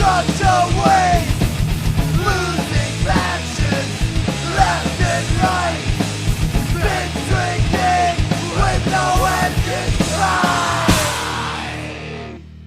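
Thrash metal band playing, with guitars, bass guitar and drums. Near the end the playing drops away and a low chord is left ringing.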